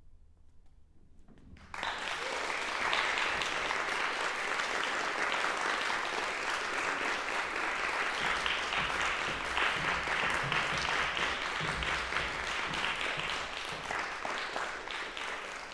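Audience applauding, starting suddenly under two seconds in after a short hush at the end of the song, then going on steadily and easing off near the end.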